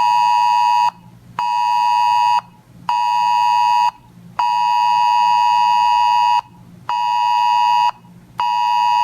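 Weather alert radio sounding its alert: a loud buzzy alarm tone in beeps of about a second with short gaps, one beep about two seconds long, signalling an incoming National Weather Service alert.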